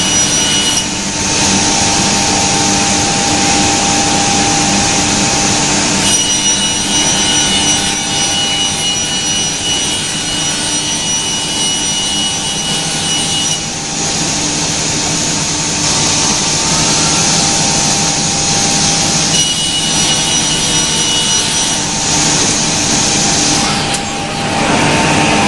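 HOMAG Optimat BOF CNC woodworking machining center running and machining wood. Every few seconds it switches between a steady high whine and stretches of louder, brighter cutting noise.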